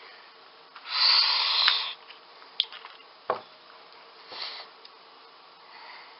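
Crinkly packaging rustled loudly for about a second as small LEGO pieces are taken out of an advent calendar compartment, followed by a few light clicks, a dull knock and a softer rustle.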